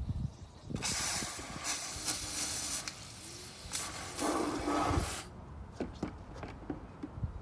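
Hose-fed trigger spray wand jetting water into a plastic bucket: a steady hiss of spray that starts about a second in and cuts off suddenly about five seconds in, followed by a few light clicks.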